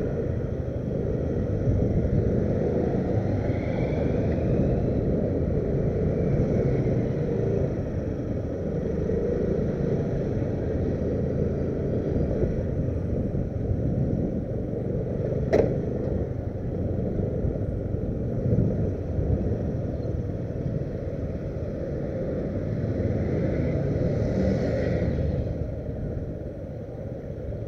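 Motorcycle engine running as it rides slowly, with a steady low rumble throughout. A single sharp click comes about halfway through.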